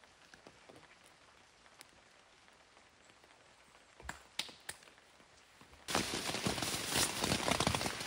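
Light rain, sparse drops ticking faintly. About four seconds in come three sharp knocks. About six seconds in a much louder, dense crackling patter cuts in abruptly.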